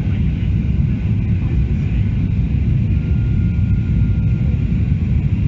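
Steady low rumble of a Boeing 737-800 cabin in flight: the CFM56-7B turbofan engines and airflow over the fuselage, heard from a seat over the wing during the approach descent. A faint thin tone sounds for a second or two near the middle.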